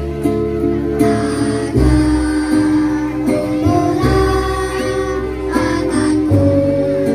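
A group of children singing a song together through a microphone, over instrumental accompaniment.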